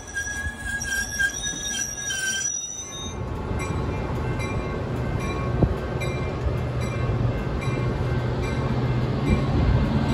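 Metra bi-level gallery commuter cars rolling past. For the first three seconds a high, steady metallic squeal rings out. After it stops, the wheels click over the rail joints about twice a second over a rumble that grows louder near the end.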